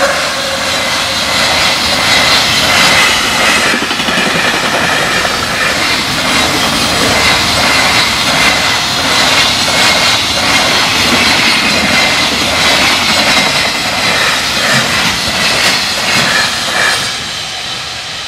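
A long freight train of container wagons passing at speed: the wheels clatter over the rail joints in a dense rushing noise, which eases near the end as the last wagons go by. The level-crossing alarm rings under it.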